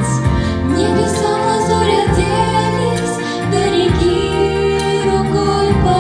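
A song with instrumental backing: young girls' voices singing over sustained accompaniment.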